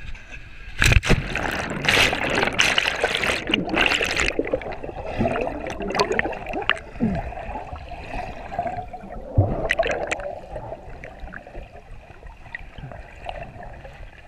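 A body plunging into a pond, with a heavy splash about a second in, then muffled underwater bubbling and gurgling heard through a waterproof camera housing, fading toward the end.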